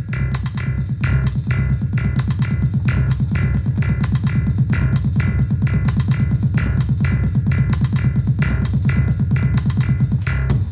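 Experimental techno/deep house played live on hardware, including a Boss 1600 CD, with a steady, driving beat and heavy bass.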